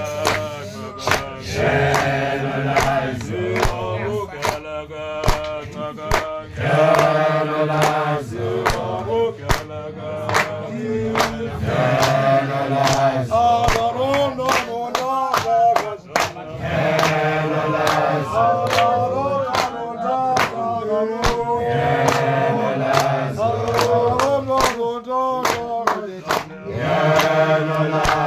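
A group of men's voices singing and chanting together in repeating phrases, over steady sharp hand claps.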